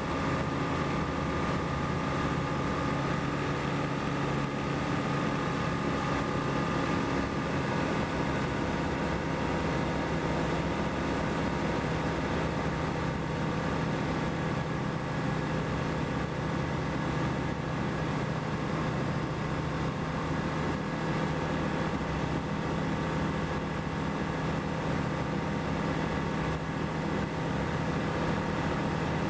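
Single-engine light aircraft's engine and propeller running steadily in flight, a constant drone with airflow rushing over the camera's microphone.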